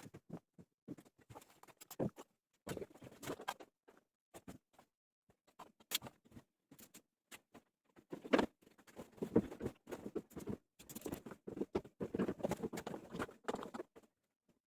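Irregular clicks, taps and scrapes of hand tools and parts being handled while a washing machine is taken apart, busier and louder from about eight seconds in.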